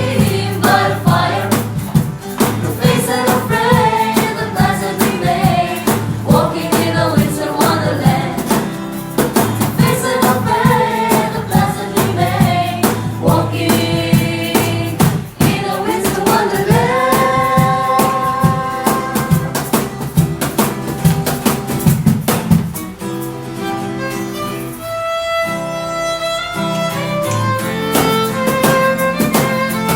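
Live music: a group singing in harmony over instrumental backing that includes a violin. Near the middle the voices hold a long chord, then a quieter passage of sustained notes follows.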